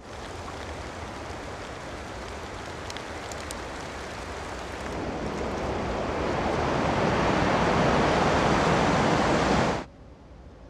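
Wind blowing hard, swelling louder about halfway through, then cutting off suddenly near the end.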